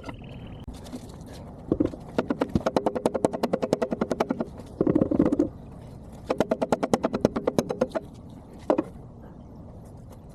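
Two rapid runs of hammer blows on steel, a few dozen sharp strikes each with a metallic ring, plus a heavier knock between them and a last single strike. The blows are sped up fourfold.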